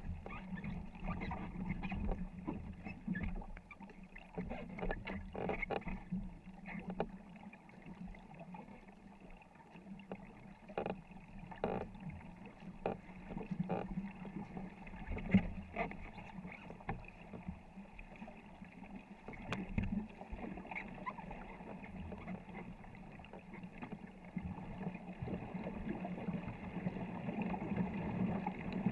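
Crew paddling a 24-foot war canoe: repeated paddle strokes splashing into the water, with water rushing along the hull.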